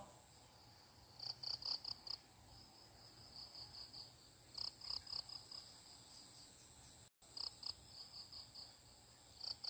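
Faint insect chirping, cricket-like: short trains of rapid high chirps that come and go every couple of seconds over a faint steady high tone. The sound drops out for a split second about seven seconds in.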